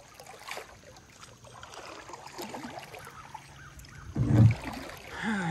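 Kayak paddle strokes dipping and dripping in calm river water as the long touring kayak is turned, with a short low thump about four seconds in.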